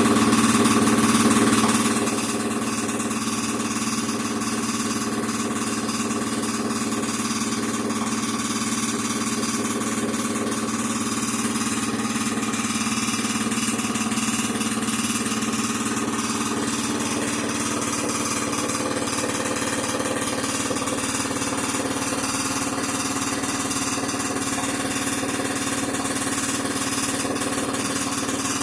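Air compressor running with a steady mechanical hum and hiss, louder for the first two seconds and then even.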